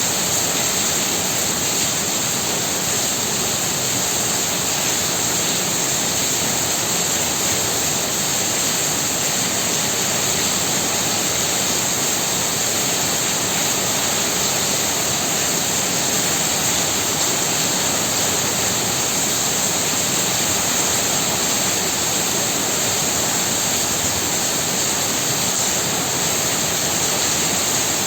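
Heavy rain pouring down, a steady unbroken hiss.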